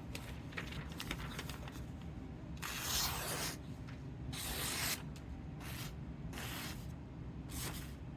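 Freshly sharpened Japanese utility knife being drawn through a test material: five short scratchy hissing cutting strokes, starting about two and a half seconds in. The edge is not yet as keen as the sharpener wants.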